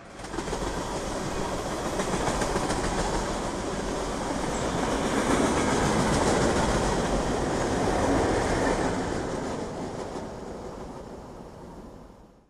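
Freight train of tank cars rolling past: steady wheel-on-rail noise with clatter, fading away near the end as the train clears.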